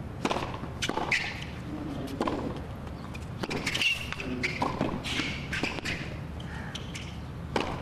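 Tennis rally on a hard court: a serve and then a string of sharp racket hits and ball bounces, about one every half second to second.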